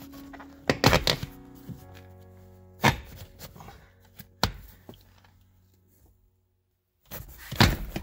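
A few sharp thumps and clunks, the loudest cluster about a second in, as a BMW E92 coupe's rear seat cushion is pulled up and its latches pop free. Background music plays underneath and cuts out briefly near the end.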